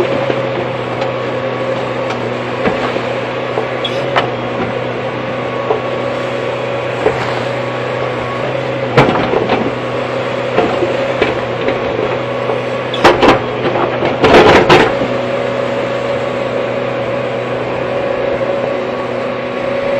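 Hyundai hydraulic excavator's diesel engine running steadily, with several sharp knocks about halfway through and a louder cluster of them about two-thirds through as the bucket works.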